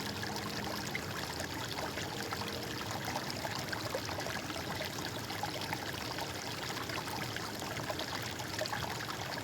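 Flowing water, a stream running steadily with a dense patter of small splashes.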